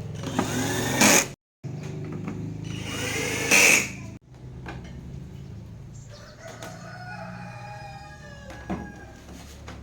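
A rooster crowing twice loudly, each crow about a second long, with a fainter, longer crow in the second half, over a steady low hum.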